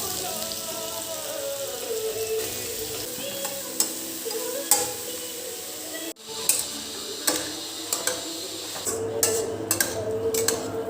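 Soft background music over a steady hiss. The sound cuts out abruptly about six seconds in, then comes back with a few sharp clinks.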